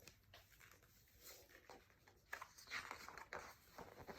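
Mostly near silence, with faint paper rustling and soft clicks in the second half as a picture book's page is handled and turned.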